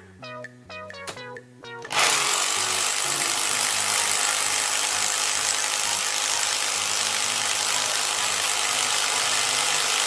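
Power tool sound effect starting suddenly about two seconds in and running steadily at a loud, even level, over soft background music.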